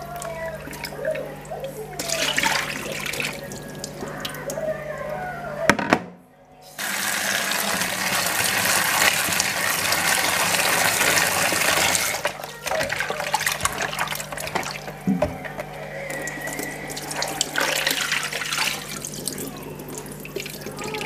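Kitchen tap running into a stainless-steel sink while raw chicken is rinsed and rubbed by hand, with splashing and handling noises. The tap runs full and steady for about five seconds in the middle.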